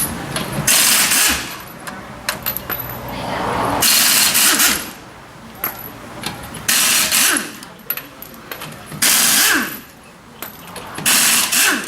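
Pneumatic impact wrench firing in five short bursts, about every two seconds, as the wheel's lug nuts are spun off.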